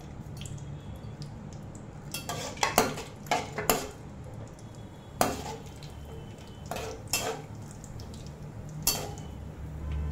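A flat metal spatula stirring cashew nuts frying in oil and ghee in a non-stick kadai, scraping and knocking against the pan in irregular strokes.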